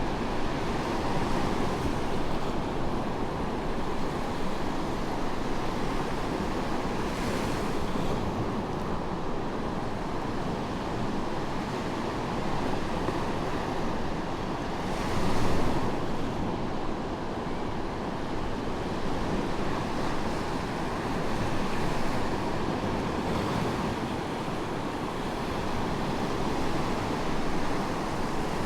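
Medium waves breaking and washing onto a sandy beach, a continuous surf wash that swells and ebbs, with one louder wave crash about halfway through.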